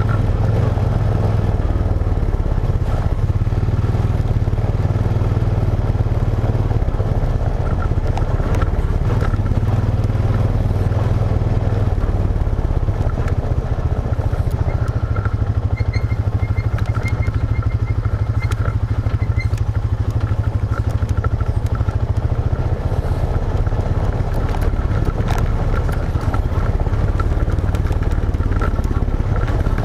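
An ATV's engine running steadily at low pitch as it rides along a gravel trail, with the clatter of tyres and stones underneath and scattered knocks.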